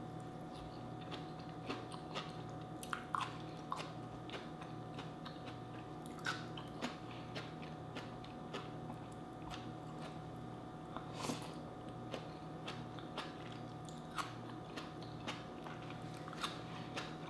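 Close-miked eating sounds: sweet potato leaves (kamote tops) and a slice of fresh tomato being bitten and chewed. The sound is a string of irregular wet clicks and crunches, with a few sharper ones, over a faint steady hum.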